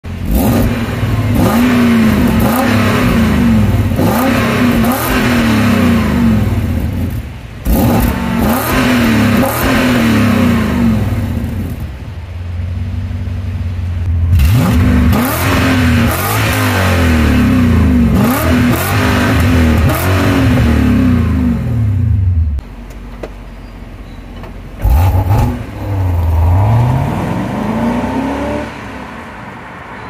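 BMW E39 M5's V8 revved repeatedly through its quad-tip exhaust in three long bursts of quick blips with short pauses between. About two-thirds through it settles to a quieter idle. After one more blip comes a rising pull as the car drives away, fading near the end.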